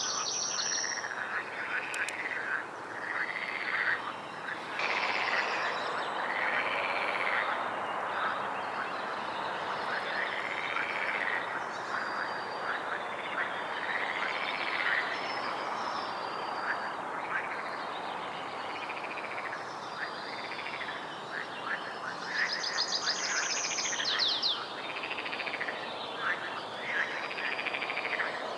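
Frogs croaking in chorus: a continuous background of calls with one nearer voice repeating a rising-and-falling croak every second or two.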